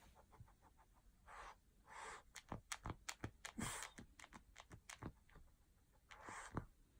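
A pet breathing faintly in four short sniffs or pants, mixed with many scattered light clicks and taps. No squeak is heard.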